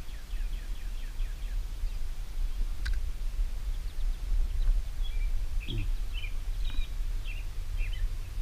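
Birds chirping over a steady low rumble: a quick run of short chirps in the first couple of seconds, then scattered chirps later, with one sharp click about three seconds in.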